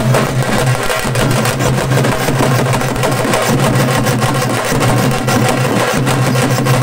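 Procession drumming: a group of frame drums and barrel drums beaten with sticks in a fast, dense rhythm. A steady low hum runs underneath.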